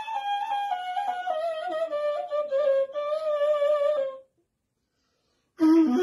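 Persian ney (end-blown cane flute) played solo: a slow phrase that steps downward with small wavering ornaments and breaks off about four seconds in. After a silence of over a second, a new, lower phrase begins just before the end.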